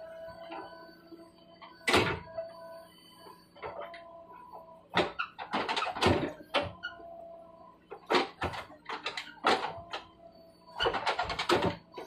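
JCB backhoe loader digging with its rear bucket into rocky soil: the diesel engine runs steadily under hydraulic load while the bucket scrapes the bank and stones and earth clatter down in several loud bursts.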